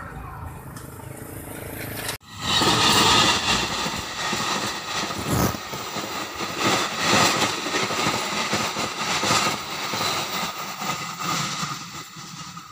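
Passenger train carriages rushing past close by, wheels clattering on the rails. The first two seconds are fainter, with the train far off, then the sound turns suddenly loud and eases off near the end as the train draws away.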